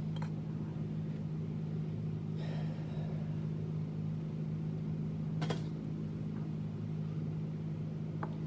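A steady low hum of room machinery, with a faint rustle about two and a half seconds in and a couple of light clicks from handling the just-opened tin can and its pull-tab lid, one in the middle and one near the end.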